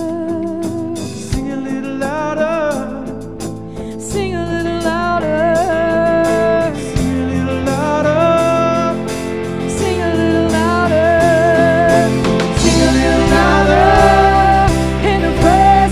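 Live worship band playing a song, with several singers over electric guitar, acoustic guitar and keyboard. Low bass notes fill in about seven seconds in, and the band grows louder near the end.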